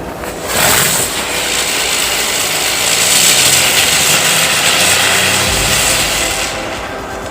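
Diwali firework burning with a loud, steady hiss of spraying sparks that starts about half a second in and dies away after about six seconds.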